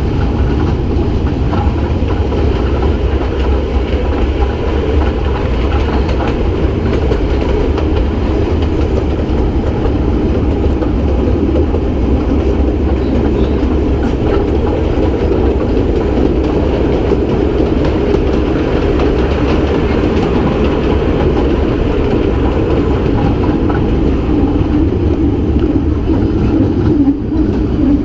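Narrow-gauge Kurobe Gorge Railway train running along the track, heard from an open-sided passenger car: a steady, loud rumble and rattle of wheels on rails. Near the end the sound briefly dips and changes as the train enters a tunnel.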